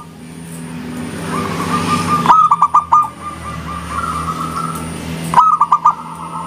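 Zebra doves (perkutut) cooing: two loud phrases of quick clipped notes, one about two seconds in and one near the end, each trailing into a longer held coo, with fainter answering coos between them. A steady low hum runs underneath.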